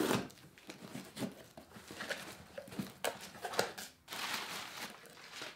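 Scrapes, clicks and rips as the packing tape on a cardboard box is slit and the flaps pulled open. From about four seconds in, a steady crinkling of crumpled brown kraft packing paper.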